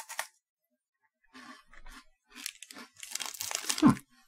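Close-up crunching of a crisp Yokohama butter sandwich cookie being bitten and chewed, in irregular crackles that grow denser and louder toward the end, with a short low thump near the end as the loudest moment.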